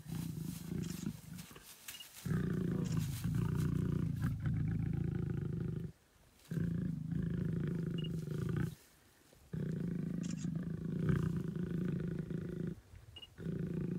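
Mating lions giving low, drawn-out growls, in long stretches of two to three seconds broken by short pauses.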